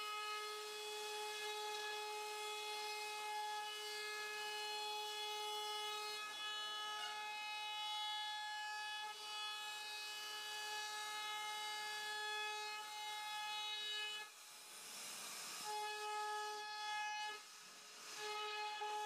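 CNC router spindle running at speed with a steady whine while its bit carves a relief pattern into a solid wood panel, with a hiss of cutting. The whine drops out twice for about a second near the end.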